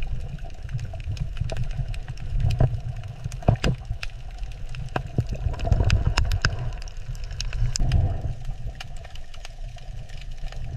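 Underwater ambience: a steady low rumble of moving water with scattered sharp clicks and pops.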